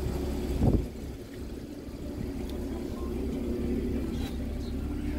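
A Porsche Cayman's door shutting with a single solid thump about a second in, over a steady low engine hum.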